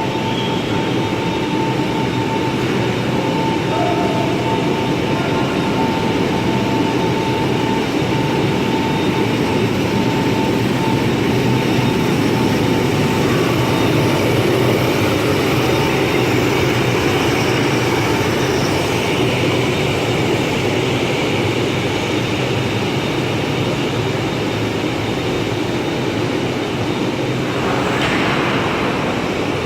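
Concrete floor grinder running steadily, a loud constant machine drone, with a thin high whine over roughly the first ten seconds.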